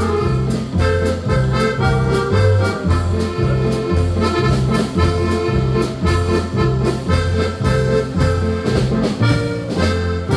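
Polka band playing live: accordion melody over an oom-pah bass that alternates between two low notes, with a steady drum beat.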